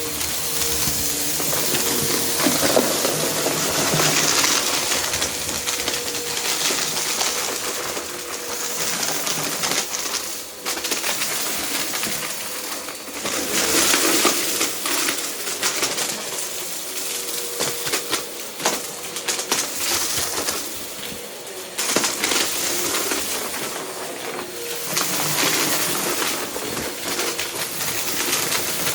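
Vacuum cleaner running continuously while sucking up a scattered mess, with many small clicks and rattles as bits of debris are pulled up through it.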